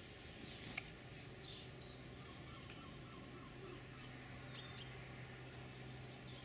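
Small garden songbirds giving short high chirps and twitters, with two sharper chirps about four and a half seconds in, over a steady low hum.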